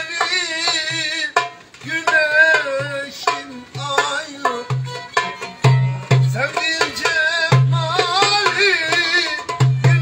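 Turkish folk dance music on violin, playing a wavering, ornamented melody, over goblet drum (darbuka) and frame drum rhythm with deep bass strokes and sharp slaps.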